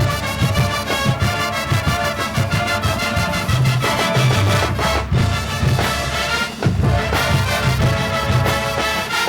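Marching band playing, with full brass chords over a repeating low bass line.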